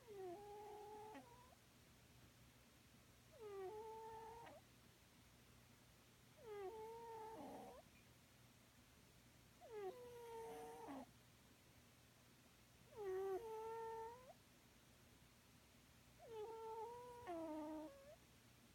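Sleeping cat snoring, each breath coming out as a high, squeaky whistle rather than a rasp: six snores about every three seconds, faint. This odd, pitched snore is what the owner jokingly calls a busted 'snore box'.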